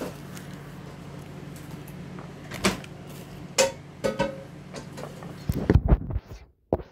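A steady low hum with a few sharp clicks that ring briefly, then loud rumbling thumps of the recording phone being handled and moved.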